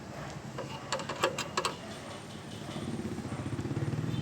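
A quick cluster of sharp clicks and knocks about a second in, then an engine running with an even low pulse, growing louder through the second half.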